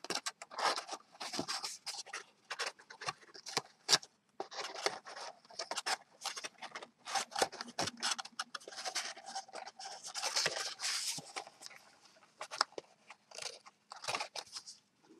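Stiff cardstock being handled and folded by hand: irregular crackling, scraping and tapping of the paper as the flaps of a box are worked into place, with one sharper tap about four seconds in.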